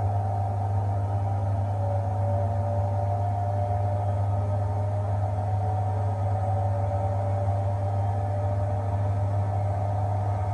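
Washing machine running steadily: a constant low hum with a slightly wavering motor whine above it.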